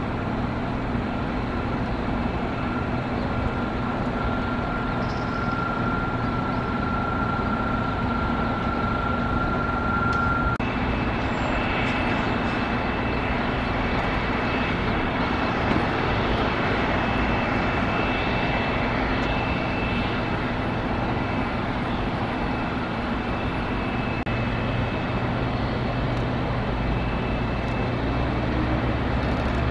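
Boeing 747-400 freighter's jet engines running at taxi power: a steady rumble with a high, even whine. The whine steps up in pitch about ten seconds in.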